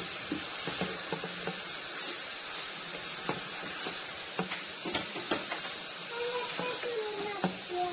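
Shredded cabbage, capsicum and carrot sizzling as they are stir-fried in a non-stick wok: a steady hiss, with the scattered clicks and scrapes of a wooden spatula against the pan.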